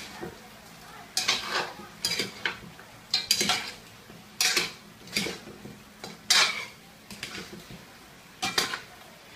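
Metal ladle scraping and clanking against a metal pot as chopped turkey meat is stirred. About a dozen irregular strokes, starting about a second in.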